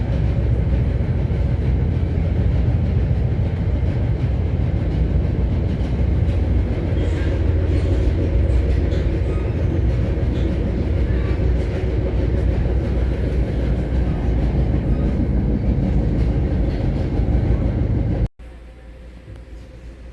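Interior sound of an NJ Transit Comet IIM commuter coach running on the rails: a loud, steady low rumble of wheels and car body. Near the end it cuts off suddenly and gives way to a much quieter rumble.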